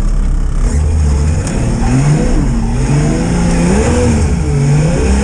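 Nissan Patrol Y60's engine heard from inside the cab, revving up and down several times under a heavy low rumble as the truck works its way over off-road ground.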